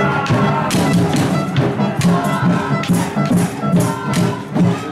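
Loud music with a steady drumbeat, about two beats a second, and sharp cymbal-like hits.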